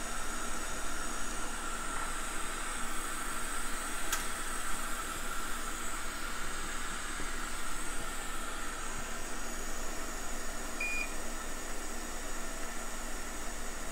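Steady airy hiss of workbench equipment while soldering, with one short electronic beep about eleven seconds in.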